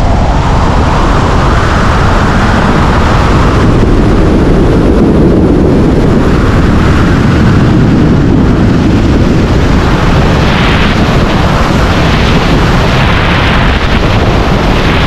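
Loud, steady rush of air buffeting the microphone of a wingsuit pilot's body-mounted camera in fast flight, swelling and easing slightly with no break.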